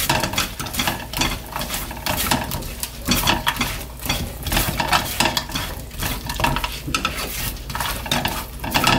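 Slotted spatula stirring and scraping fried chicken pieces through thick, sticky sauce in a nonstick frying pan, in repeated uneven strokes, while the sauce sizzles over low heat.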